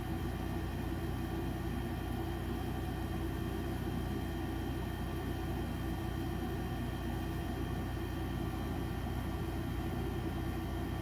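Electric fan running steadily, a constant hum with a soft whir.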